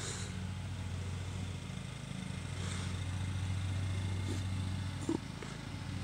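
A steady low mechanical hum, like an engine running at a distance, swelling slightly in the middle, with a faint click about five seconds in.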